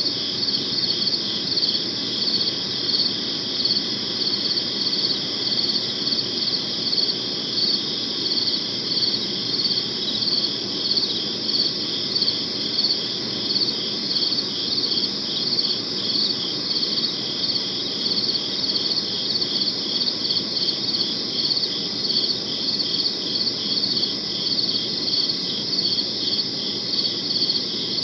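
Crickets chirping in an even, unbroken rhythm of about two chirps a second, over a faint low background hiss.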